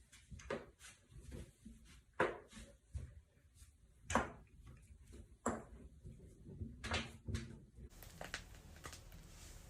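Joints cracking during chiropractic adjustments: a string of sharp pops and clicks, the loudest two about two and four seconds in.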